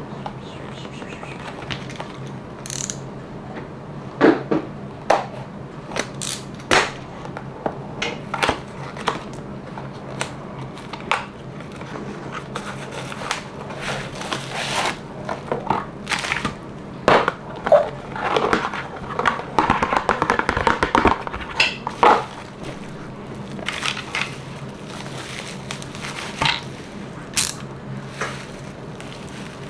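Unboxing handling noise: packaging and plastic parts being handled, giving scattered clicks and taps. A stretch of dense crinkling and crackling comes from about seventeen to twenty-two seconds in.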